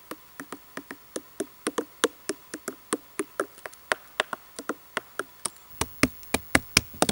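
Fingers tapping quickly on hard, woody bracket fungi growing on a log, about four knocks a second, sounding much like tapping on wood. The taps grow louder in the second half.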